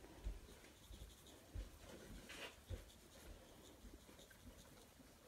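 Near silence with faint rustling and scratchy handling noises as dried thyme is sprinkled and rubbed over a raw chicken.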